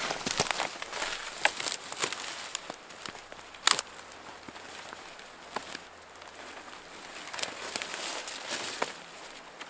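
Irregular crackling and rustling of footsteps and handling outdoors, with one sharper crack about three and a half seconds in.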